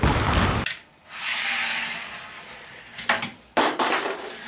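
A burst of noise that cuts off sharply just after the start, then a small toy car's motor whirring across a tabletop for about two seconds, followed by a few sharp clicks and a knock near the end.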